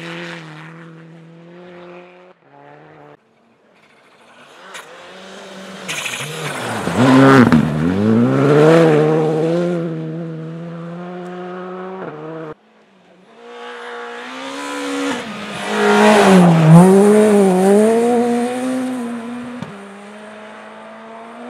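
Rally car engines on a snow stage being revved hard. The pitch climbs and drops again and again through gear changes and throttle lifts, with two loud surges, and the sound cuts off suddenly about 3 seconds in and again near the middle.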